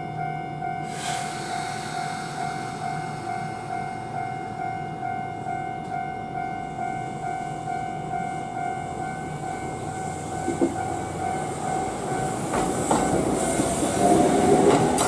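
Japanese level-crossing warning bell ringing in a steady repeating pattern while a Kintetsu electric train approaches. The train grows louder over the last few seconds, with wheels clattering over the rail joints.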